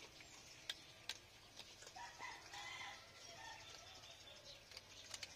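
Near-quiet background with a few faint sharp clicks and, in the middle, several soft short animal calls.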